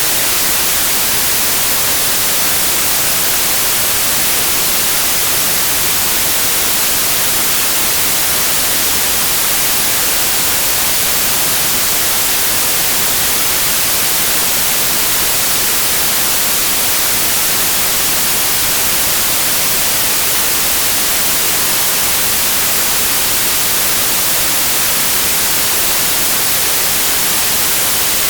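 Steady white noise: an even, unchanging hiss at constant loudness, brightest in the high frequencies.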